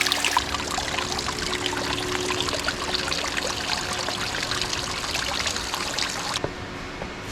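Running water splashing and trickling, a steady hiss full of small splashes. About six seconds in the sound turns duller.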